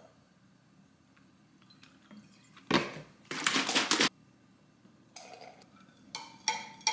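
A creamer bottle is handled and shaken over a mug in a short loud burst, then a metal spoon stirs coffee in a ceramic mug, clinking repeatedly against its sides near the end.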